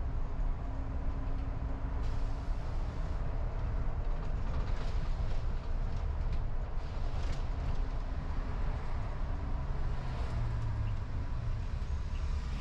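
A car driving along a city street: a steady low rumble of engine and tyres on the road, with a hiss of road noise above it.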